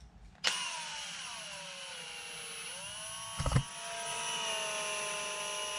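A power tool's electric motor starts abruptly with a whine that sags in pitch under load over about two seconds, then runs steadily. A single knock comes partway through.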